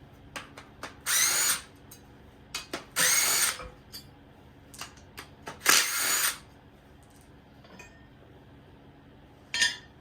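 Battery power tool spinning up in short bursts: three of about half a second each and a brief fourth near the end, with small metal clicks between. Bolts are being run out of a 305 V8 during its teardown.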